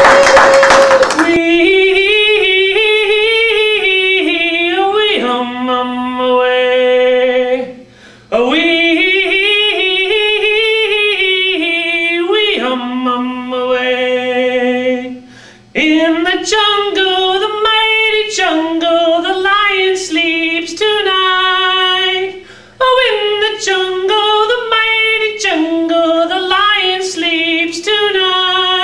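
A man singing solo into a handheld microphone with no accompaniment, in long held phrases broken by three short pauses. Loud cheering fills the first second.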